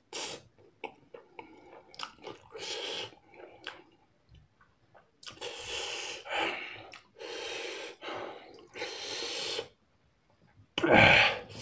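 A man eating spicy noodles: wet chewing and small mouth clicks, then several long hissing breaths, each about a second, as he reacts to the chilli heat. A loud, sudden burst of breath comes near the end.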